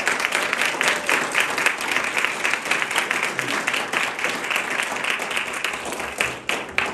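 Audience applause: many hands clapping in a dense, steady patter that eases off near the end.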